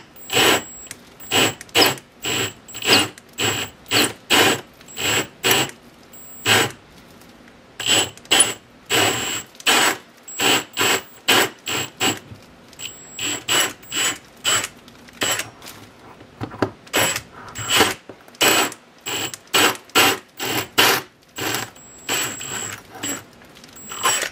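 Cordless Milwaukee M18 drill spinning a 1¾-inch hole saw up through 3/4-inch plywood, run in short trigger bursts about two a second, the saw teeth cutting the wood. The cut is nearly through to the track above.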